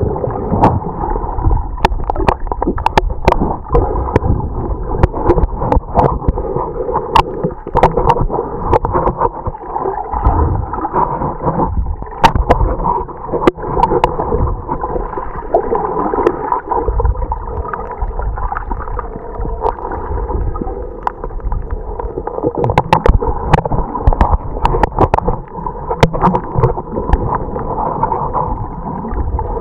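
Muffled underwater sound picked up by a submerged camera: a steady low rumble and gurgling of water, dotted with many sharp clicks and crackles.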